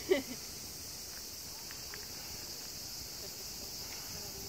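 Steady, high-pitched chorus of insects, an even unbroken chirring.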